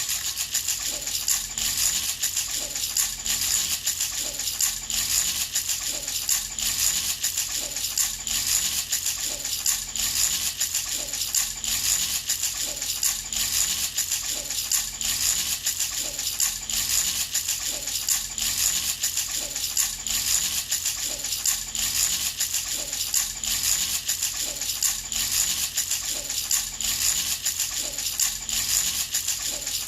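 A baby's handheld rattle shaken steadily and continuously, giving a high, bright rattling with an even shaking rhythm.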